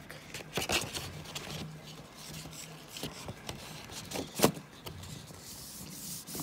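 Hands handling a coin in its card-and-plastic packaging: rubbing and scraping, with a few sharp taps, the loudest about four and a half seconds in.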